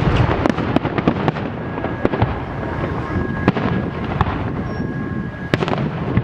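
Festive fireworks salute: a continuous rumble of shell bursts with many sharp cracks and pops, the sharpest about three and a half and five and a half seconds in, and a thin whistle heard through the middle.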